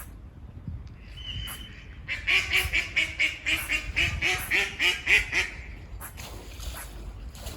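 Squirrel barking: a rapid run of short calls, about five a second, lasting around three seconds and starting about two seconds in.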